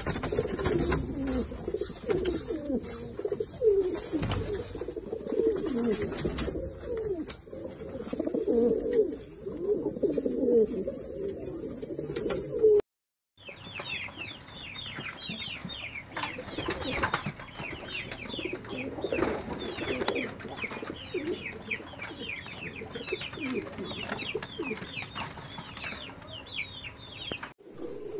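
Fantail pigeons cooing, many overlapping low coos that fall in pitch. After a cut partway through, the cooing goes on more faintly under a run of rapid high chirps, several a second.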